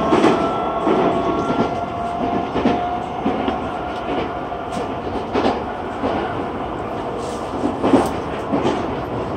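Interior running noise of a Nagoya Municipal Subway N3000-series train at speed, with repeated clicks of the wheels over rail joints. A faint motor whine is heard and fades out after about three seconds.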